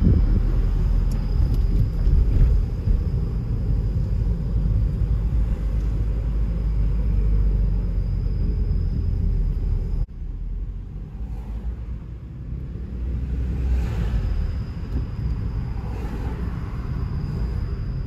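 Car driving on a city street, heard from inside the car: a steady low rumble of road and engine noise. It drops suddenly about halfway through to a quieter level.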